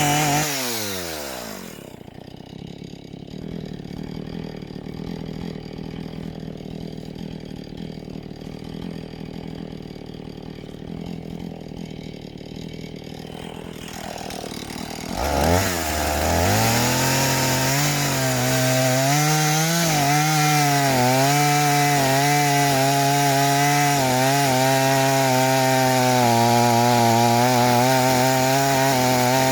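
Chainsaw engine dropping from high revs to idle in the first two seconds and idling for about thirteen seconds. It then revs up about fifteen seconds in and runs at full speed, its pitch wavering slightly as it cuts into a fresh log.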